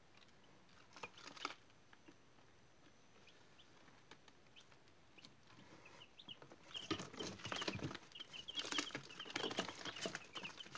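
Day-old chicks peeping: quiet at first, then from about halfway through many short, high chirps overlapping, with tapping and scratching as they peck and scratch around the feed tray and litter.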